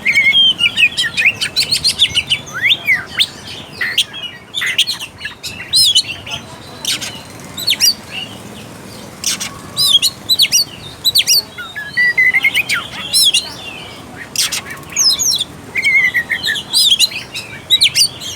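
Oriental magpie-robin (kacer) singing a long, varied song of looping whistled phrases and fast chattering runs, broken by many sharp clicking notes.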